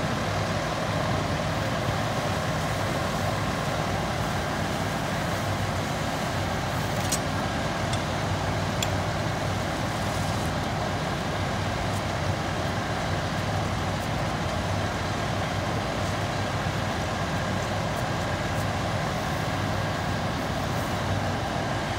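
Steady running drone of an idling fire engine, even and unchanging, with a couple of faint clicks about seven and nine seconds in.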